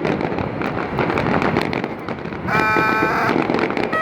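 Fireworks bursting with a dense, rapid crackling and popping.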